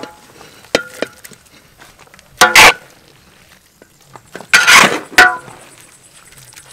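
Long metal ladle scraping and clanking against a large steel wok while scooping stir-fried cabbage out onto a steel tray, with two loud ringing scrapes, about two and a half and five seconds in, and a few lighter clicks in between.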